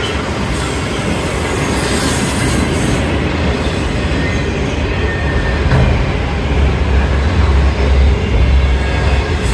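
Freight train of autorack cars passing close by: a steady rush and rumble of steel wheels on rail. The low rumble grows heavier over the last few seconds.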